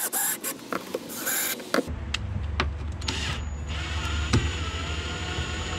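A few clicks and knocks, then a small electric motor whirring steadily, starting about three seconds in, with a low hum beneath it.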